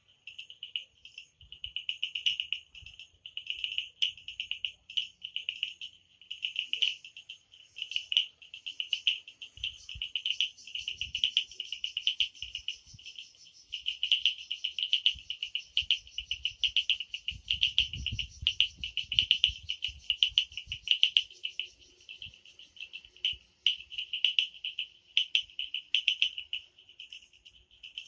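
A chorus of calling frogs and insects from the wet monsoon vegetation, a high, steady trilling that pulses about twice a second. Some low rumbling comes in about two-thirds of the way through.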